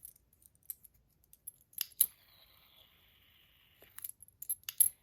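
Fidget spinner being handled and flicked: sharp clicks and taps, then a steady high whir from the spinning bearing for about two seconds, followed by more clicks near the end.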